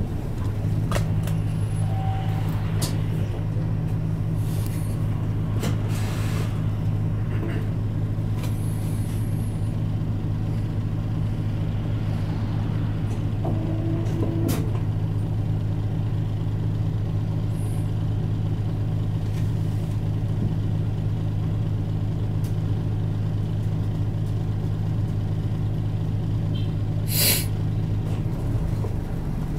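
Isuzu Erga Mio city bus's four-cylinder diesel idling steadily while the bus stands, heard from inside the cabin, with a short hiss of air from the bus's air system near the end.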